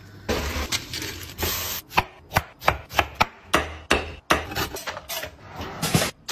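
Kitchen knife chopping on a wooden cutting board: a quick run of sharp, irregular knocks, about two or three a second, with rubbing and scraping between them.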